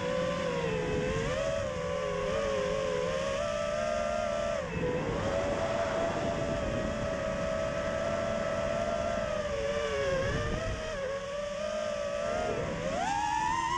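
FPV quadcopter's electric motors and propellers whining, heard from the onboard camera with wind rush. The pitch wavers with the throttle, dips briefly about five and ten seconds in, then rises sharply near the end as the throttle is pushed up.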